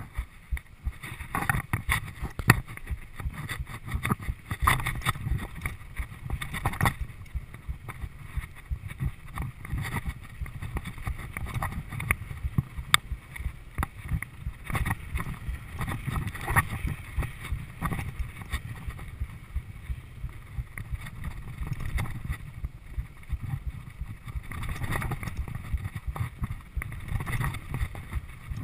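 Mountain bike descending a dirt singletrack, heard through a rider-mounted GoPro: a steady rumble of tyres on dirt and wind on the microphone, with frequent clicks and rattles from the bike over bumps.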